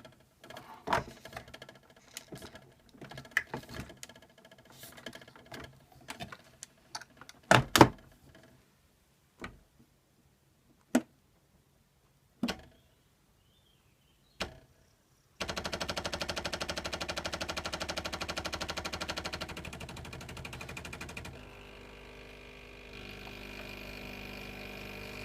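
Scattered clicks and knocks of the Bosch Tassimo being handled and its lid shut. Then, about fifteen seconds in, the machine's pump starts with a loud, rapid, steady buzzing rattle as it brews the milk pod. About six seconds later it settles to a quieter steady buzz.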